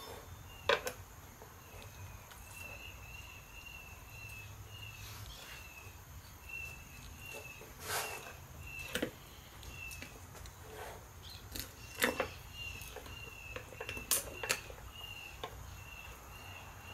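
Faint, high chirping repeated about three times a second from a small animal, bird or insect in the background, pausing once a little past halfway. Over it come a few sharp knocks and clinks as the chickens on their wire beer-can racks are handled and set down on a wooden cutting board; the loudest knock is about a second in.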